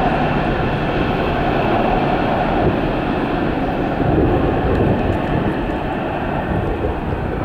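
Airbus A330-200's twin Rolls-Royce Trent 700 turbofans running as the airliner moves on the runway: a loud, steady jet rumble and rush.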